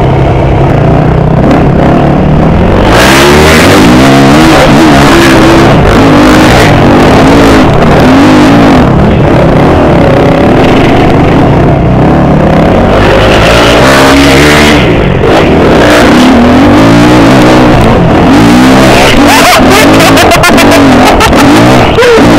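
Yamaha YZ250F four-stroke single-cylinder dirt bike engine being ridden hard, revving up and down over and over with a rising and falling pitch, loud and close to the microphone on the bike.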